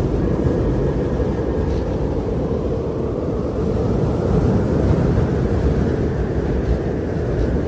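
Wind blowing steadily, a deep rumbling noise that swells a little midway.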